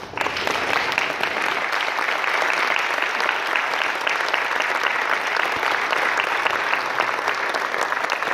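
Audience applauding: steady, dense clapping that starts all at once and keeps up without letting off.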